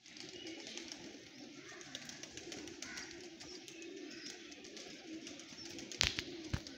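Domestic pigeons cooing in a low, wavering drone, with a couple of sharp knocks near the end.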